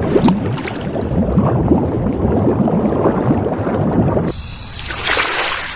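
Underwater bubbling sound effect, a dense crackle of many small irregular pops. About four seconds in it cuts abruptly to a cleaner track, and near the end there is a short whoosh.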